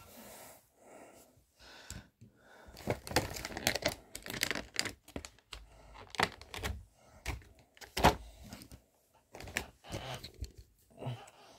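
Toy packaging being handled: irregular clicks, taps and crinkling of cardboard and plastic, with one sharp click about eight seconds in the loudest.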